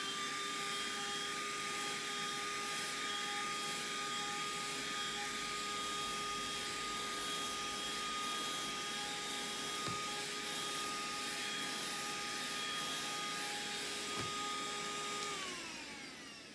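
Cordless handheld vacuum cleaner running, a steady motor whine over the hiss of rushing air. It is switched off near the end and winds down with a falling whine.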